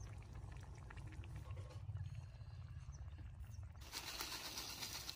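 Crisp boondi (tiny fried gram-flour balls) poured from a plastic packet into a clay bowl of curd, heard as a rustling hiss for about a second near the end. Before it there is a steady low rumble.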